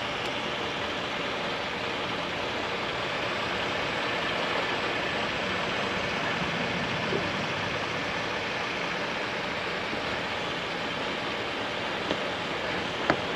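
2016 Ford Explorer's engine idling steadily, with a couple of faint clicks near the end.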